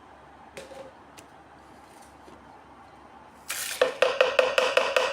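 Measuring spoon clinking rapidly against a container, a run of evenly spaced ringing strikes about six a second that starts about three and a half seconds in, after a couple of faint clicks.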